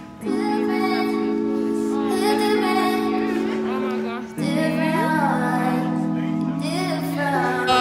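Background music: a song with a woman singing over held chords. The chords change about half a second in and again a little past four seconds.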